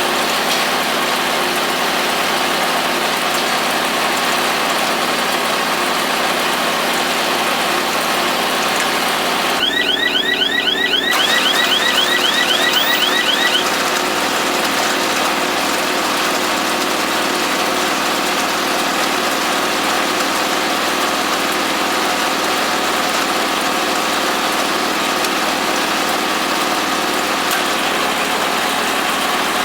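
Kubota compact tractor's diesel engine running steadily while driving a Farm Maxx mini round baler. About a third of the way in, a rapid run of short high chirps repeats for a few seconds.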